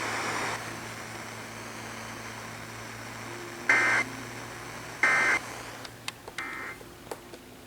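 Three short bursts of EAS SAME data tones, about a third of a second each and a little over a second apart, the last one weaker: the end-of-message signal that closes an Emergency Alert System test. Received over the air, with a steady hiss underneath and a few sharp clicks after the bursts.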